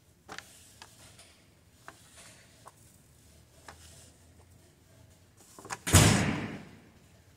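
A piece of card scraping seeds across an aluminium baking sheet, with light scrapes and small ticks. About six seconds in, a loud bang that dies away over about a second.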